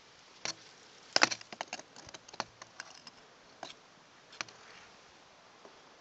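Irregular light clicks and snaps, loudest in a quick cluster about a second in, then sparser single ticks.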